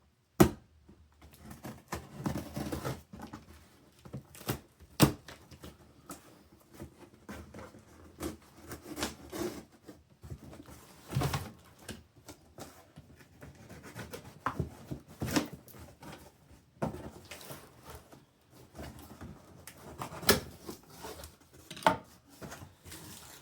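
A tough cardboard box being worked open by hand: packing tape and flaps tearing, scraping and rustling, with sharp knocks and clicks now and then.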